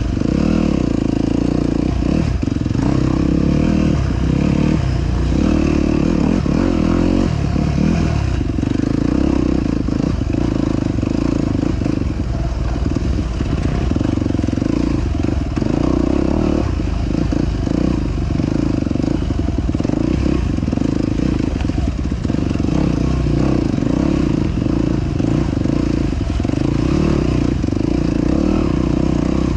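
ATV engine running steadily while riding a trail, with frequent short knocks and rattles from the machine going over rough ground.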